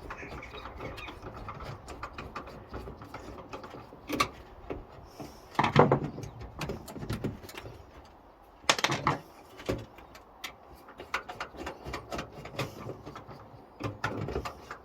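Metal clicks, scrapes and a few louder knocks as screws are worked loose to take the hard drive out of an old desktop computer's steel case, with louder knocks about four, six and nine seconds in.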